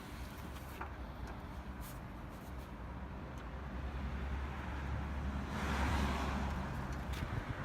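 Road traffic in the background: a steady low rumble with a vehicle passing, swelling to its loudest about six seconds in, and a few light clicks.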